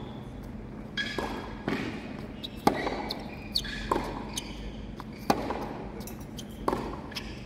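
Tennis rally on a hard court: sharp pops of racket strings striking the ball and of the ball bouncing, about one a second. The loudest strikes come about every two and a half seconds.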